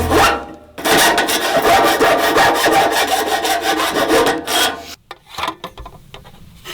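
Rapid, loud rasping strokes of a hand tool scraping through material, starting about a second in and stopping after about three and a half seconds, followed by a few scattered knocks.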